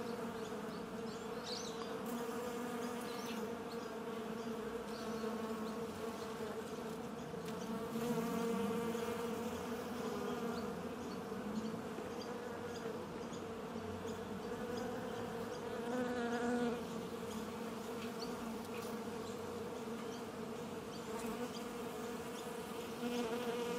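Honeybees buzzing in a steady, many-voiced hum, with single bees swelling louder as they pass close now and then.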